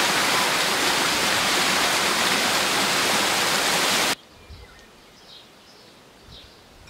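Waterfall and rocky stream rushing in a loud, steady roar that cuts off suddenly about four seconds in. After the cut there is a quiet background with a few faint, high bird chirps.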